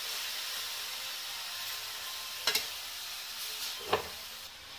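Grated carrots sizzling steadily as they fry in ghee in a kadai, stirred with a steel spatula: the sautéing stage of gajar ka halwa. A few sharp clinks, a quick pair past the middle and one more near the end.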